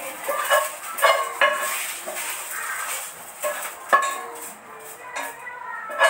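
Spatula scraping and knocking against a frying pan as fried rice is emptied onto a plate, with several sharp clacks in between.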